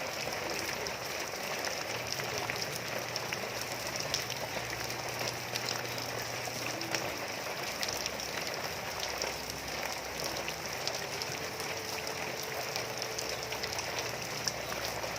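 Steady rain falling on hard surfaces and water: a constant hiss with many small drop ticks.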